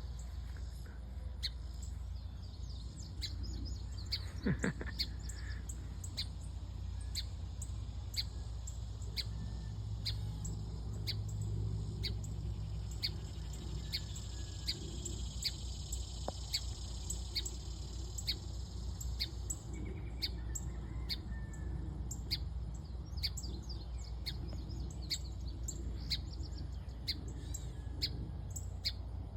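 A bird chirping over and over, about two short, high chirps a second. Under it runs the steady high buzz of cicadas, which stops about two-thirds of the way through, and a low, steady rumble.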